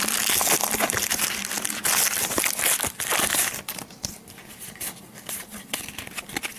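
Crinkling and rustling of a foil trading-card pack wrapper being handled and opened. It is loud for the first three and a half seconds, then quieter rustling follows.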